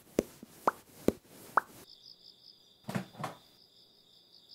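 Four quick plops, each rising in pitch, about half a second apart. About two seconds in, they give way to a faint steady high tone with two soft brief sounds.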